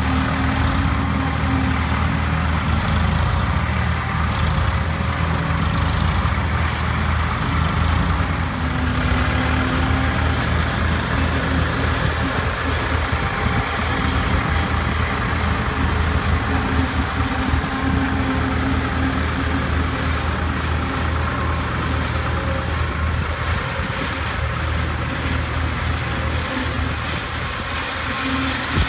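Tractor diesel engines running steadily under load as a tractor-driven Shaktiman fodder harvester chops standing corn and blows the chopped silage into a trolley, one steady mechanical drone.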